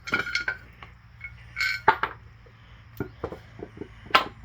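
Metal transmission parts and hand tools clinking and clanking during a teardown of a 4L65 automatic transmission. There are scattered sharp knocks and one short metallic ring about a second and a half in.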